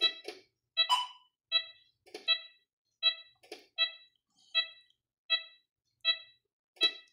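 Mindray T5 patient monitor sounding its heartbeat tone: a short high beep roughly every three-quarters of a second, about 80 a minute, one per detected beat. A few soft clicks and knocks fall between the beeps.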